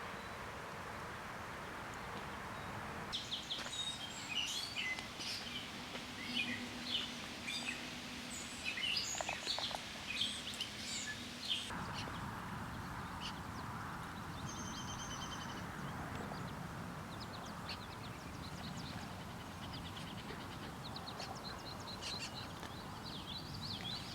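Birds chirping and calling in many short, high notes over a steady hiss. The hiss cuts out suddenly about three seconds in and returns about halfway through, and a fast, high trill repeats a little after that.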